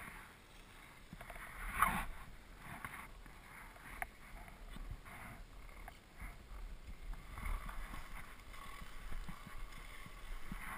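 Skis sliding and carving on groomed snow: a swishing scrape that swells and fades with each turn, with a few sharp clicks.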